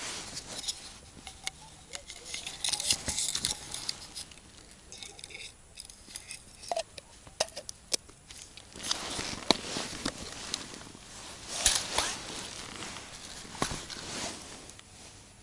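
Close handling of ice-fishing tackle: rustling of clothing and hands, with irregular small clicks and taps of plastic and metal gear, and a denser stretch of rustling about two-thirds of the way through.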